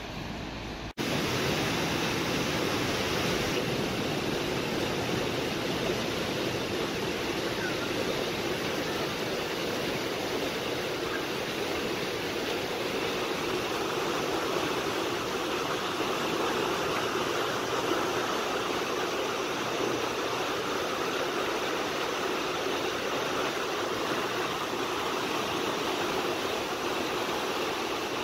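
Fast river water rushing steadily through and over a needle weir, churning into white water below it. The rush grows louder about a second in and then holds steady.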